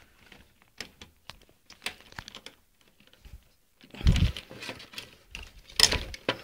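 Small plastic clicks and taps of a cable connector being handled and pushed into its socket inside an open desktop PC case, with two louder knocks about four and six seconds in.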